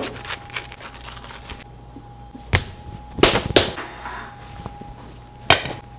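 Knife cutting through the crisp crust of a baked pizza in pala, the crust crackling and crunching; then a few sharp crunches, the loudest a pair about three seconds in. A faint steady tone hums underneath.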